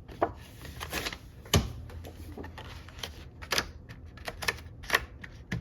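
Paper planner pages and a divider being handled and fitted into a disc-bound Happy Planner: irregular sharp clicks with paper rustling between them, the loudest click about a second and a half in.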